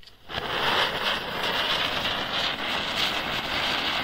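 Diwali ground spinner firework (chakri) burning, giving a loud, steady hissing rush of sparks that catches and builds to full strength a moment in.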